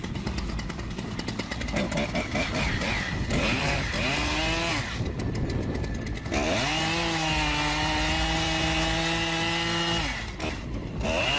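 A chainsaw running with uneven, rising and falling revs for the first few seconds, then held at a steady high pitch from about six seconds in. It drops off briefly near the end and then picks up again.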